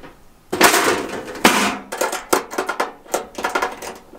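Metal clanking and rattling as the lid and folding wind panels of a Coleman two-burner propane stove are swung down and shut. A run of smaller clicks and knocks follows as the latch is fastened.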